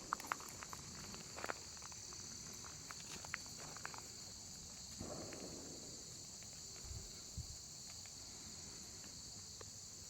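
Steady high-pitched insect chorus, with a few light clicks and rustles in the first four seconds.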